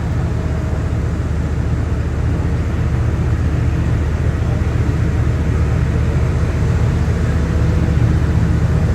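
Jet aircraft engine roar, a loud, steady low rumble that builds slowly.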